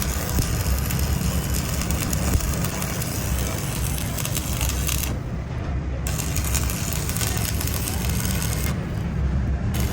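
A machine runs with a steady low rumble and a hiss above it. The hiss drops out briefly about five seconds in and again near the end.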